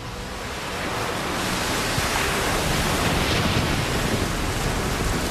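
Heavy surf on a stormy sea: a steady rush of breaking waves and spray, building over the first second or so.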